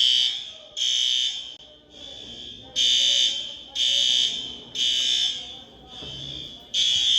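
School fire alarm sounding a high-pitched honk in groups of three, about a second apart, with a longer pause between groups. This is the temporal-three evacuation signal.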